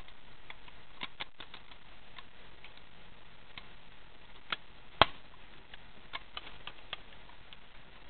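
Irregular light clicks and taps from hands handling parts on the engine and the camera, with two sharper clicks close together about four and a half to five seconds in. The engine is not running.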